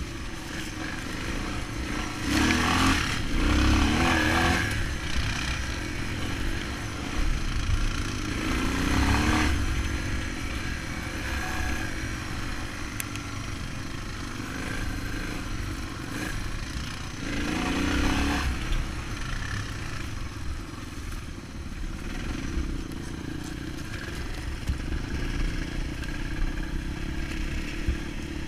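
Dirt bike engine running while riding off-road, the throttle opening up in louder surges a few seconds in, around nine seconds and again around eighteen seconds.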